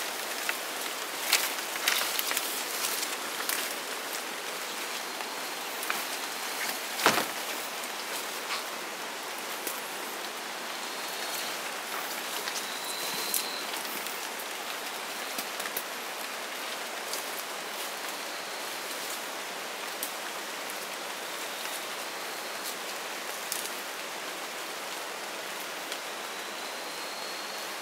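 Rainforest ambience: a steady hiss from the wet jungle, with scattered crackles and snaps of leaves and twigs as hikers push through dense undergrowth, and one sharp knock about seven seconds in. A few faint short chirps sound over it.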